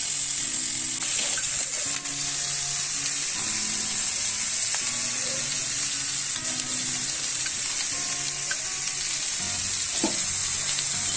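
Fish pieces frying in hot oil in a pan: a steady, even sizzle. Faint piano music plays underneath.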